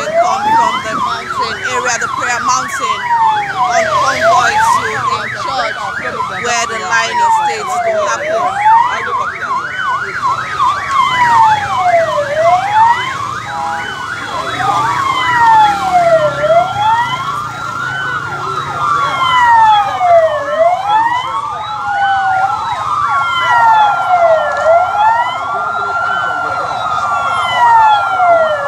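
Police vehicle sirens wailing, several at once: slow sweeps rising and falling every few seconds overlap one another, quicker sweeps join in the first few seconds, and a steady high tone comes in about halfway through.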